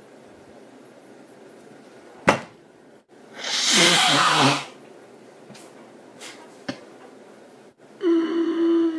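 A loud, breathy sneeze, about a second long, from a person with allergies, coming a little after three seconds in and preceded by a sharp click. Near the end comes a steady held vocal sound lasting about a second.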